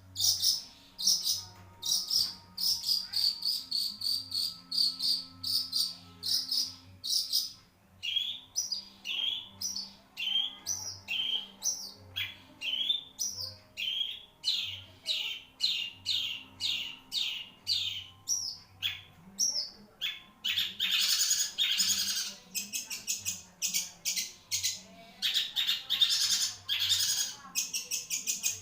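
Long-tailed shrike (cendet) singing without a break: a fast string of sharp, high repeated notes, many of them dropping in pitch, with harsh scratchy chatter twice near the end.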